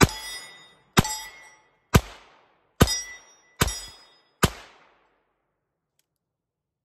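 Six shots from a Colt Police Positive revolver, about one a second, each trailing off in a short echo. The sixth shot empties the six-shot cylinder.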